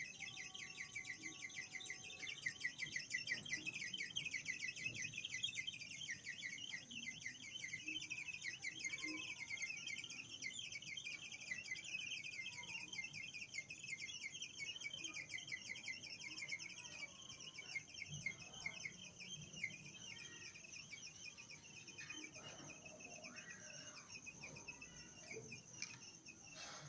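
Rapid, high-pitched chirping pulses with a steady high tone above them, coming from a hot Nissan Grand Livina XV engine bay after shutdown. The sound fades gradually over the second half. The owner traced it to a worn exhaust manifold gasket (packing knalpot) at the engine.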